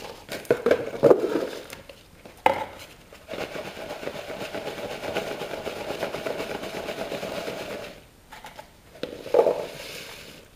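Handmade firework stars rattling and rolling inside a plastic tub as it is shaken to coat them in priming powder. A few clattering knocks in the first seconds, then a steady rolling rattle for about four seconds, and another clatter near the end.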